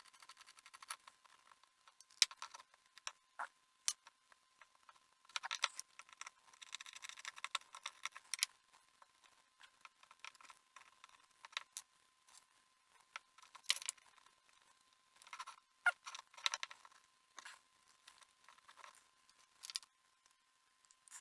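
Irregular small clicks, taps and scratchy scrapes of tiny metal parts and hand tools being handled while the wheels are taken out of an HO scale model locomotive, busier in a few short stretches. A faint steady high tone runs underneath.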